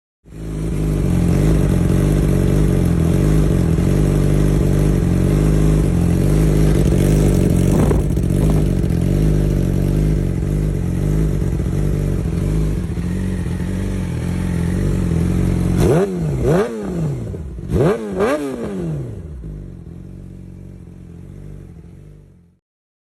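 Yamaha YZF-R6 inline-four sportbike engine through a Yoshimura aftermarket exhaust, idling steadily, then revved in a few quick throttle blips that rise and fall sharply before it drops back to idle. The sound cuts off abruptly near the end.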